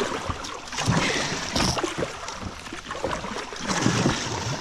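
River water splashing and sloshing, with irregular low bumps and small knocks throughout.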